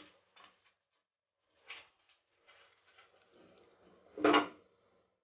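Spatula moving dried bay leaves and red chillies around a dry nonstick kadai: faint light scrapes, then one louder, short clatter about four seconds in.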